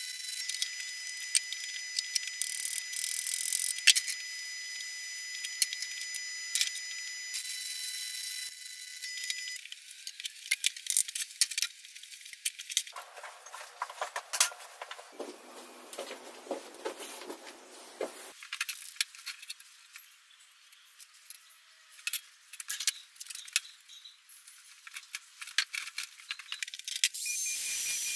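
Electric arc welding crackles steadily with a high electrical whine for the first nine seconds or so. Then steel brake discs and parts clink and clatter as they are handled. About a second before the end an angle grinder starts cutting steel rod with a steady hissing whine.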